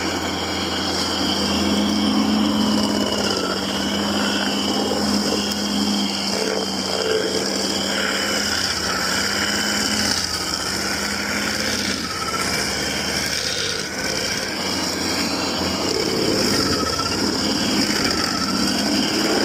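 Stump grinder running steadily, its engine holding one pitch while the cutting wheel grinds into a wood stump, with uneven rough chewing over the engine note.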